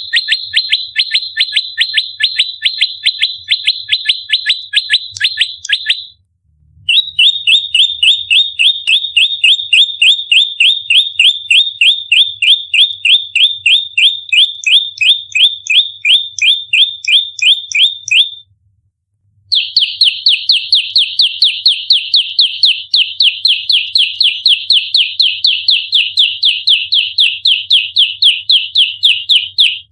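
Prenjak lumut giving its rapid fighting call: fast, evenly spaced, sharp high notes in long runs, breaking off briefly about six seconds in and again around eighteen seconds in.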